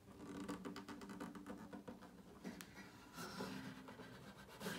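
Acoustic guitar being handled: its strings ring faintly with a few steady low notes while fingers and hands brush and tap on the wood, making a run of small irregular clicks.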